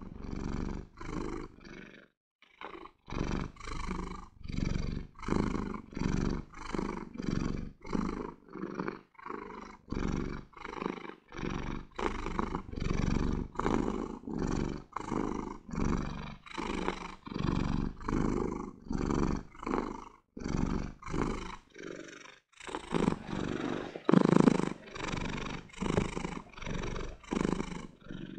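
Domestic cat purring close up, in rhythmic pulses a little under two a second as it breathes in and out, with a few brief pauses.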